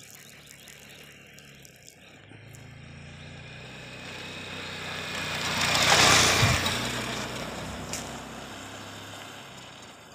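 A motorcycle riding past at speed: its engine grows louder as it approaches, is loudest as it passes about six seconds in, and the note drops in pitch as it goes by and fades away.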